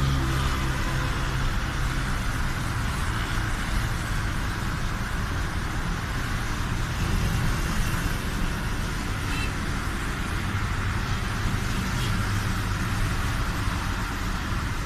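Steady running noise of a moving road vehicle: an engine hum under even road and wind noise, heard from aboard the vehicle.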